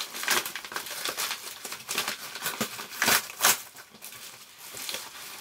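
A book mailer being opened by hand: the packaging crinkles and tears in a run of quick rustles, with two louder rips about three seconds in.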